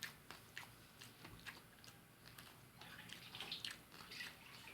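Faint chewing of fried fish: scattered short wet mouth clicks and smacks, busier about three seconds in.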